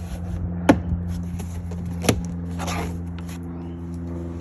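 Plastic door-panel retaining clips snapping into a car's rear door as the trim panel is pressed home: two sharp clicks about a second and a half apart, then a brief rustle, over a steady low hum.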